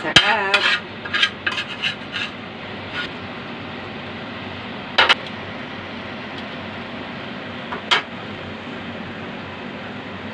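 Utensils clinking and scraping on a ceramic plate as food is plated: a quick run of clinks at the start, then two single sharp clinks about five and eight seconds in, over steady background noise.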